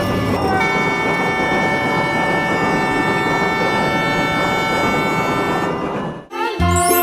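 Train horn sounding one long held blast over the running noise of the train, then both cutting off suddenly about six seconds in.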